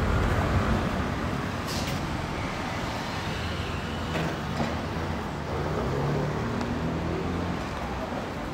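City street traffic: cars driving past with a steady engine and tyre rumble. A short sharp hiss comes about two seconds in.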